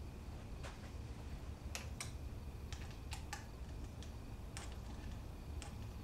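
Scattered light clicks and ticks, about eight, at irregular intervals over a low steady hum.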